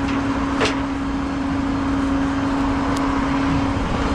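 Tow truck engine running steadily with a constant hum over a wash of noise, and a single sharp click about half a second in.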